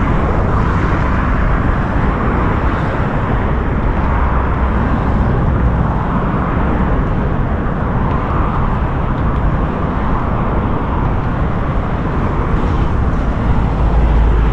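Steady outdoor rushing noise with low wind rumble on the microphone, swelling near the end.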